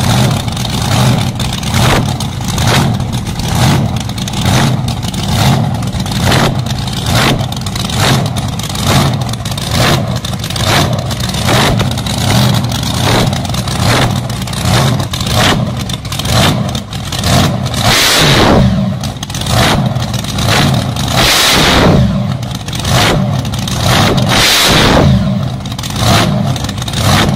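Twin supercharged V8 engines of a drag car running, the sound swelling and falling about once a second, with three sharp throttle blips in the last third.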